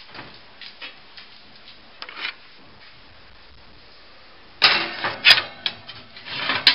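A pizza stone clattering against a metal oven rack as it goes into the oven. A few quiet seconds with faint clicks come first, then a loud, rattling clatter starts about four and a half seconds in.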